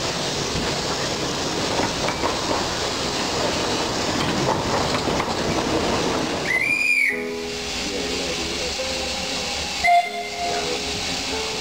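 Running noise of a 15-inch gauge steam train, then a short steam whistle that rises and falls about two-thirds of the way in. After the whistle, background music with sustained notes comes in under the train noise.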